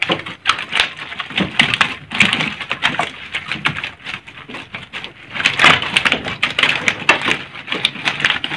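Dense, irregular clattering and slapping as a wire-ringed keepnet packed with live tilapia is gathered up and handled on a wooden deck, the rings and mesh knocking against the planks.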